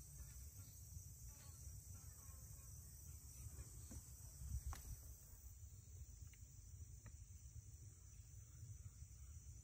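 Faint, steady high trilling of crickets in the grass, with a low rumble underneath and a light click about halfway through.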